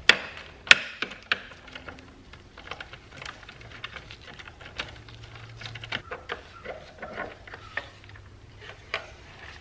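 Quarter-inch drive ratchet with an extension clicking in uneven spells, with scattered metal clicks and taps, as the battery hold-down nut is undone.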